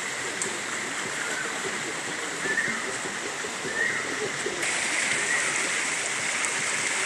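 Shallow rocky mountain stream running over stones: a steady rush of water that grows a little louder about halfway through.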